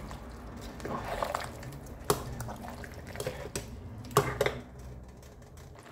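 Chili garlic sauce cooking in a pot of hot oil: a steady low bubbling with scattered sharp pops and clinks, the loudest about two, three and a half and four seconds in.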